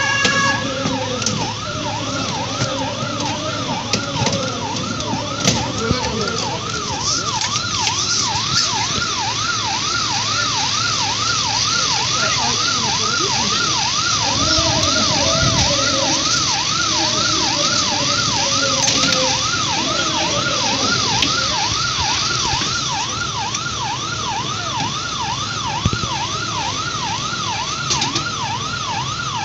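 Emergency-vehicle siren sounding a fast yelp, its pitch sweeping up and down about twice a second without a break, over a steady noisy background.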